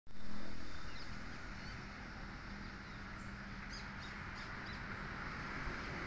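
Steady outdoor background noise with a low hum, a little louder right at the start, and a few faint, short, high bird chirps in the first part.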